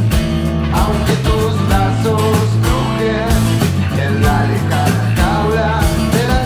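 Folk-rock band recording: acoustic guitar over bass guitar and a steady drum beat, with a melody line that bends in pitch above them.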